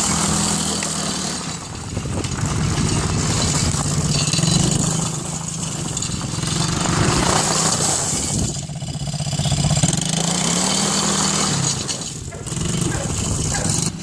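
ATV engine running as it is ridden, its pitch rising and falling several times as the throttle is worked.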